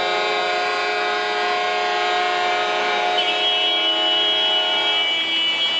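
Several steady tones held together as one sustained chord. About three seconds in it changes to a different, brighter chord.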